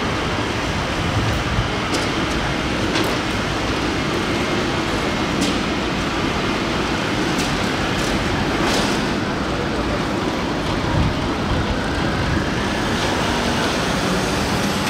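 Fire station's red folding bay doors closing: a steady rumbling noise with a few faint clicks.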